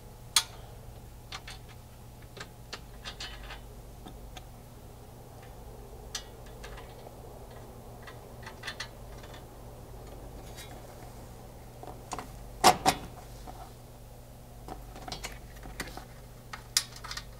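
Small metal clicks and taps of bolts, washers and nylock nuts being handled and threaded by hand as a metal MOLLE panel is fastened to a tailgate table frame, with a louder knock a little past the middle.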